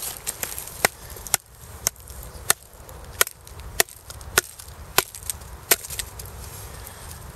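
A Ka-Bar USN Mark 1 knife being driven down through a short log to split it: about ten sharp wooden knocks, roughly two a second, which stop a little before the end.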